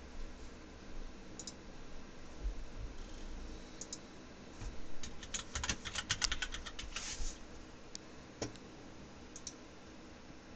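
Computer keyboard typing: a quick run of keystrokes about halfway through, with a few single clicks before and after.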